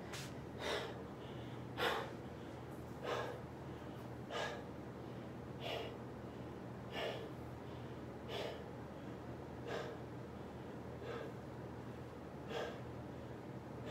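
A man breathing hard after a set of push-ups: loud, heavy breaths about one every second and a quarter, easing slightly as he recovers.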